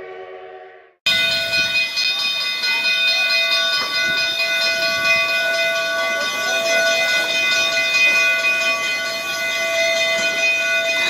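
A narrow-gauge steam locomotive's whistle fades out, then after an abrupt break a loud, steady, high whistling tone over a hiss of steam runs on unbroken.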